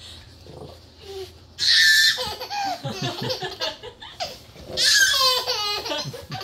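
A toddler laughing in two loud bouts, the second a quick rippling run of laughs.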